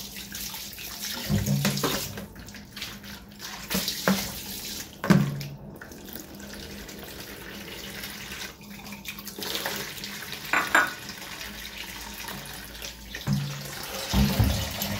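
Kitchen tap running into a stainless steel sink as raw chicken pieces are rinsed by hand in a plastic basin, with a few knocks as the basin and chicken are handled.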